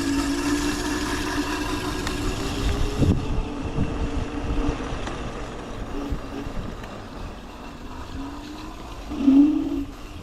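Electric scooter under way with a steady pitched whine that rises as it speeds up, fades about three seconds in, then comes back and climbs again near the end.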